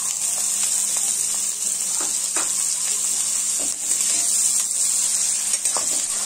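Chopped onions sizzling in hot butter and oil in a kadai, a steady frying hiss. A metal spatula scrapes and taps the pan a few times as they are stirred.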